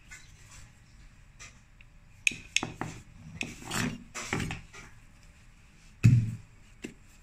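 Hands dividing and handling bread dough on a plastic cutting board: soft pats, taps and rubbing, with a louder thump about six seconds in.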